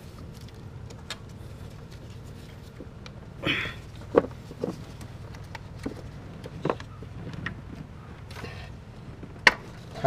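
Scattered sharp plastic and metal clicks as a hand works an ignition coil and its connector loose in a V6 engine bay, with a short scraping rustle about three and a half seconds in and the sharpest click near the end, over a steady low hum.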